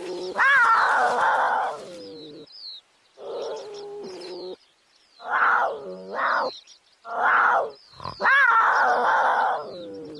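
Cubs squabbling over meat: a run of harsh, pitched calls, some rising sharply, broken by short pauses.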